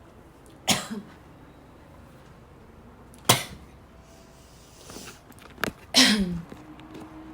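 A young woman's dry, barking coughs: three single sharp coughs about two and a half seconds apart, the last trailing off in a short voiced sound that falls in pitch.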